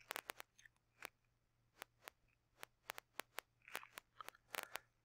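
Near silence: faint room tone with a low steady hum and about a dozen small, irregular clicks and ticks.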